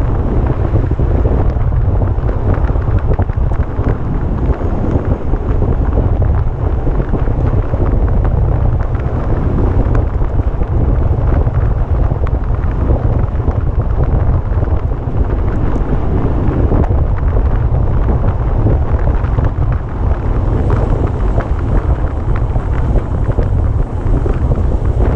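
Wind buffeting the microphone of a camera on a racing bicycle moving at speed: a loud, steady, low rumble of wind noise.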